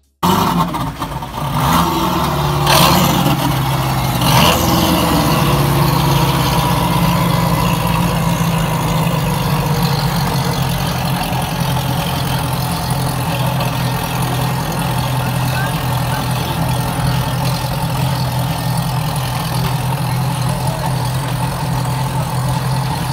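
A pair of large outboard motors idling steadily, a low even hum, with a few sharp knocks in the first five seconds.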